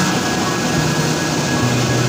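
Tea factory machinery running: a loud, steady rushing noise with a low hum that shifts in pitch now and then.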